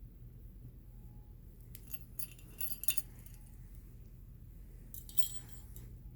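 Light jingling, clinking sounds in two short clusters, about two seconds in and again about five seconds in, over a steady low hum.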